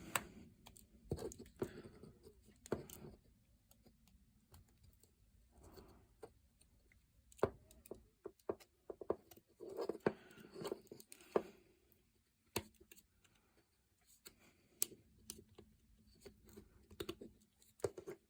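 Swiss Army knife blade paring basswood: short, irregular scraping cuts with small clicks between them, as the carver cuts up to a line on the moustache.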